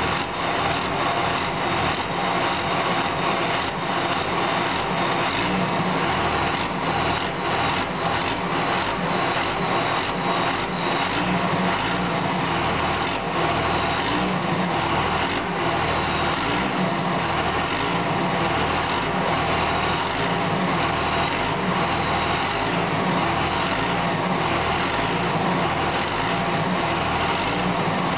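2001 Dodge Ram's Cummins turbodiesel running, with its stock turbocharger giving a loud, steady whistle that wavers slightly in pitch now and then. The whistle is made louder by the turbo's silencer ring having been removed.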